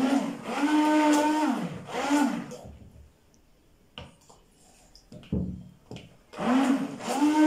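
Electric hand (stick) blender mixing crepe batter in short pulses. Each run climbs in pitch as the motor spins up, holds steady, then drops away when released. There are two runs close together, a pause of a few seconds with only faint knocks, and a third run near the end.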